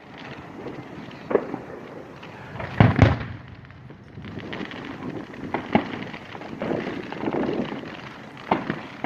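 Aerial fireworks display heard from across the street: a bang about a second and a half in, a loud double boom about three seconds in, then a run of smaller cracks and crackling with a few sharp reports.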